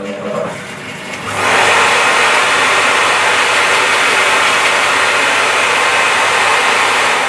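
Record Power BS350 14-inch bandsaw switched on, coming up to speed and running with a loud, steady machine noise from about a second in, while a waste offcut is fed through the blade as a test cut to check the fence setting.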